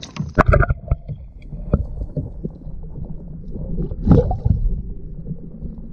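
Splashing as a largemouth bass is let back into the water beside a kayak, then a muffled low rumble with knocks heard from under the water surface, with a louder burst about four seconds in.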